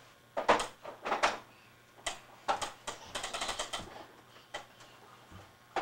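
Plastic baby push walker clacking and clicking as it is pushed and knocked about, in separate knocks with a quick run of clicks about three seconds in.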